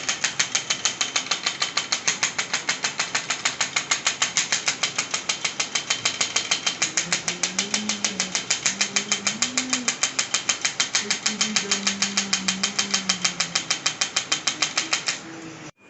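Rapid, even mechanical clicking, like a percussive treatment tool, that cuts off suddenly near the end. A faint low humming voice or tone rises and falls beneath it partway through.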